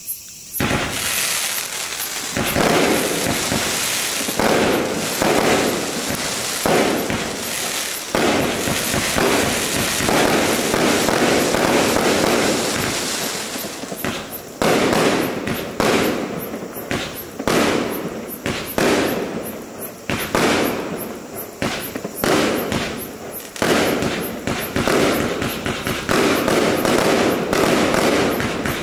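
A 72-shot fireworks cake firing straight up in rapid succession: a continuous barrage of launches and bursts. It begins about half a second in, and from about 14 seconds in the individual shots stand out more sharply, several a second.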